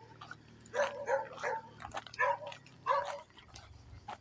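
A dog giving a run of short, high barks, about five of them starting about a second in and ending near three seconds.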